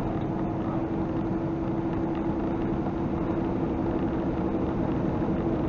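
A semi-truck's engine drones steadily under tyre and road noise at highway speed, heard inside the cab.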